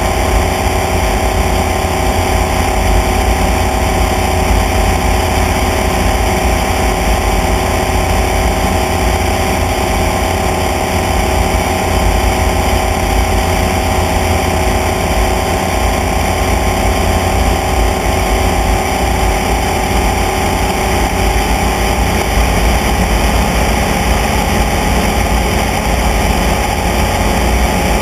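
Light aircraft's engine running at a steady cruise, a constant drone mixed with heavy wind rumble on the camera.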